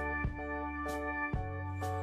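Soft instrumental background music: struck notes changing about every half second over a steady bass.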